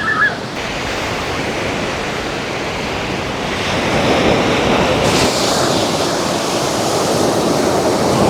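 Sea waves washing onto the shore, mixed with wind buffeting the microphone; the rush of noise swells louder about four seconds in.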